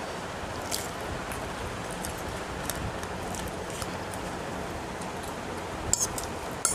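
Eating sounds from a person eating chow mein noodles with a fork: a few short, sharp clicks of fork and mouth, the loudest pair near the end, over a steady background hiss.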